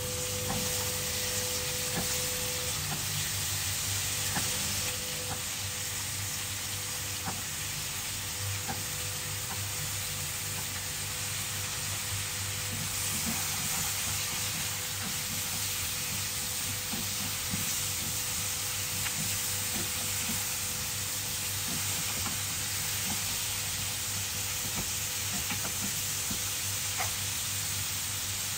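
Pumpkin cubes and sliced onion sizzling in oil in a wok over a gas burner, with a spatula scraping and clicking against the pan as they are stirred.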